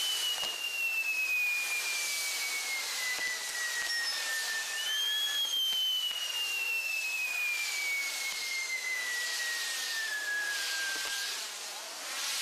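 Spinning pinwheels of a castillo firework tower burning, giving a loud steady hiss with faint crackles. Over it, two long high whistles each fall slowly in pitch, one in the first half and a second that starts about five seconds in.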